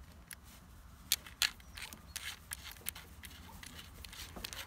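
Small clicks and taps of plastic and metal consumables being handled and fitted onto a plasma cutter torch head as the ceramic shield cup goes on, with two sharper clicks about a second in.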